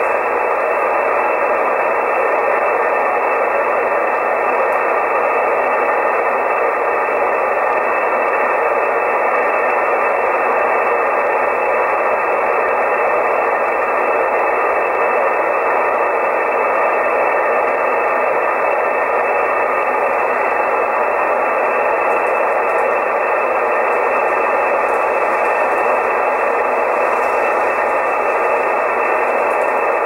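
Soft66RTL2 software-defined radio tuned to the 20-meter amateur band in upper sideband, giving out steady shortwave static: an even hiss with its highs cut off by the receiver's sideband filter, and no station audible on the frequency.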